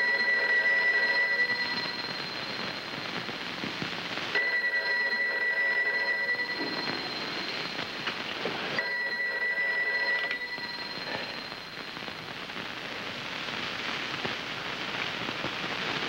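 Telephone bell ringing three times, each ring about two seconds long with a pause of about two seconds between, over a steady soundtrack hiss.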